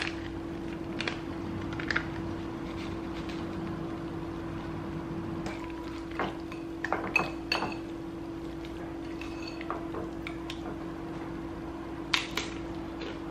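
Wire whisk stirring a thick sour cream and avocado mixture in a ceramic bowl, with scattered clinks and taps of the metal against the bowl coming in clusters, over a steady low hum.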